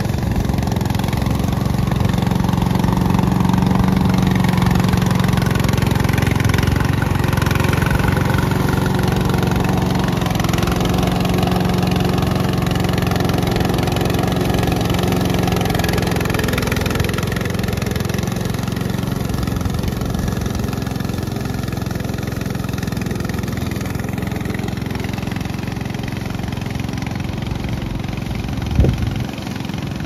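Petrol engine of a tracked remote-control mower (EGN EG750) running steadily while the mower cuts grass. The sound grows somewhat quieter in the second half as the mower moves away, and there is a brief knock near the end.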